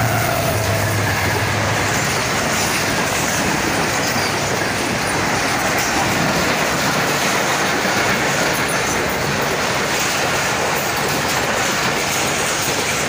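Passenger express train running through the station at speed. The GEU-40 diesel locomotive's low engine drone is heard in the first two seconds, followed by a loud, steady rush of the coaches rolling past on the rails.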